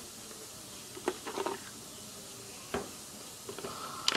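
Toys being handled in a plastic bucket: about five faint, short clicks and knocks spread through, the loudest near the end.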